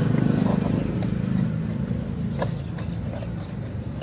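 A motor vehicle's engine running with a steady low hum, loudest at first and fading over the next few seconds, with a few faint clicks near the end.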